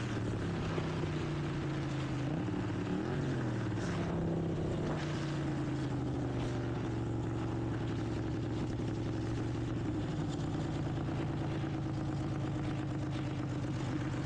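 Racing lawn mower engine running hard; its pitch drops at the start, dips and climbs back about three seconds in, then holds steady.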